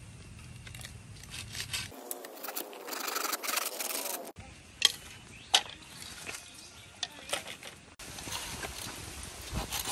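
Hand tools working wood: rasping strokes, then two sharp knocks a little under a second apart about five seconds in, with the sound changing abruptly several times.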